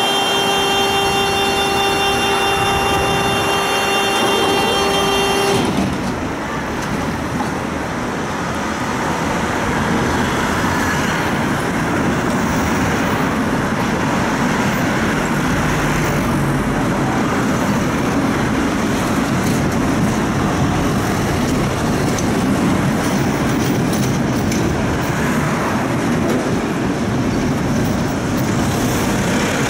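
A tram running on its rails through city traffic, a steady rumbling ride noise. For the first five or six seconds a steady horn-like tone is held over it, then stops abruptly.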